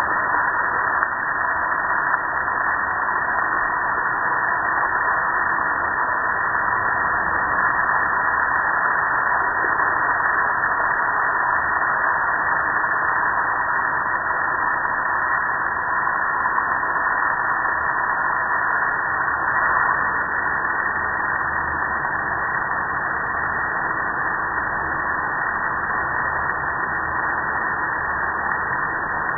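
Steady hiss of a water spray from a hose nozzle striking and splashing off the metal of a gas grill, with runoff spattering below.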